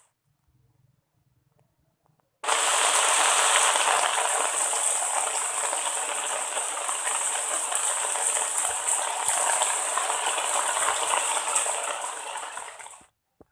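Steady rushing water noise, like heavy rain or a gushing stream, starting suddenly about two and a half seconds in after near silence and cutting off abruptly near the end.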